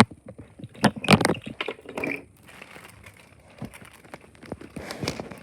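Craft-table handling sounds: a sharp knock, then a cluster of knocks and paper crinkling about a second in, and fainter scattered clicks after that.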